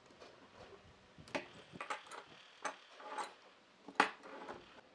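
Steel C-clamps being unscrewed and set down on a wooden workbench: a string of separate metal clicks and knocks, the loudest clunk about four seconds in, followed by a short clatter.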